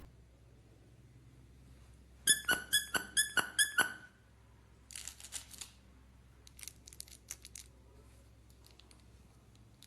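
Squeaky dog toy squeaking about six times in quick succession, as it is squeezed or chewed. Softer clicks and rustles follow.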